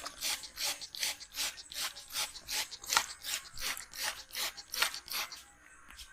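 Hands rubbing briskly in a massage: a quick, even back-and-forth rubbing, about two to three strokes a second, which stops near the end.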